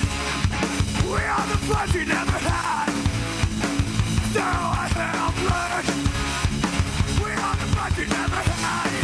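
Punk band playing live: shouted vocals in short phrases over electric guitars, bass and a steady pounding drum kit.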